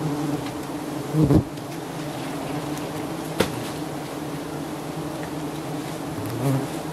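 A dense swarm of giant honey bees buzzing in a steady, low drone, the colony stirred up by smoke around its open comb. A dull knock about a second in and a sharp click about halfway through.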